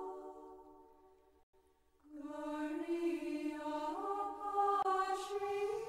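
Slow background music of long held tones. It fades out just after the start, drops to near silence for about a second and a half, then comes back with a new held chord about two seconds in that rises in steps.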